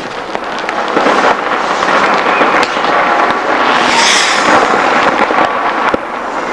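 Fireworks and firecrackers going off all over a city: a dense, continuous crackle of many overlapping bangs and pops, with a brief hiss about four seconds in.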